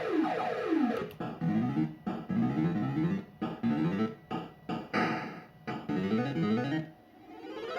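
Bell Fruit Cash Explosion fruit machine playing its electronic sound effects: quick runs of synthesized notes, falling at first, then repeated rising runs broken by short gaps, with a brief lull near the end before the tones resume.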